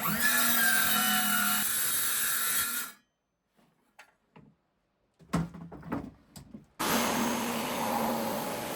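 Electric power saw running and cutting through a wooden drawer panel, twice, with a sudden silence between the two cuts and a few knocks of the workpiece being handled.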